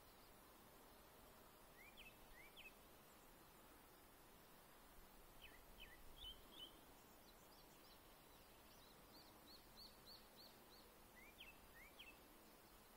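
A songbird singing faint, clear phrases of short, mostly rising whistled notes that almost sound electronic, the phrases varying in pattern. In the middle, one phrase is a quick run of about seven repeated notes.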